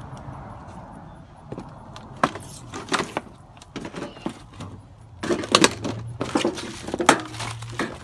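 Water from a hose spraying into a window air conditioner's metal housing, then an irregular run of clattering metallic knocks and clicks that grows busier in the second half.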